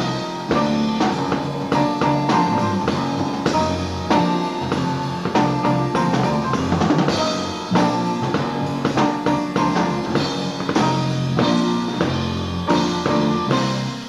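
Jazz band playing live: a drum kit keeping a busy beat under a fretless electric bass guitar, with grand piano.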